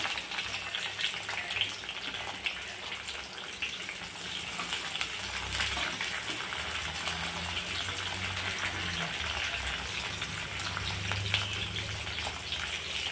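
Green chillies frying with garlic and ginger in hot oil in a kadhai: a steady sizzle with many small crackles and pops.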